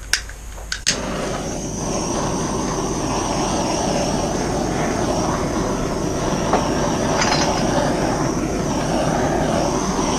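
Handheld torch clicking twice as it is lit, then its flame running with a steady hiss as it heats the corners of a wet acrylic pour.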